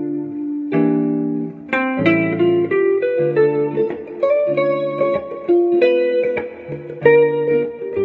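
Clean electric guitar playing single-note melody lines over a looped chord backing, with notes changing every fraction of a second above the sustained chords.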